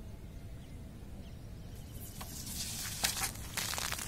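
Compressed air and shampoo foam spraying out of a pressurised plastic bottle as its cap is opened: a sputtering hiss that starts about two seconds in and grows loudest near the end.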